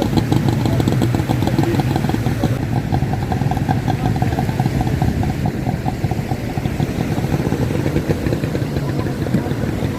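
An engine idling steadily with an even rhythmic beat.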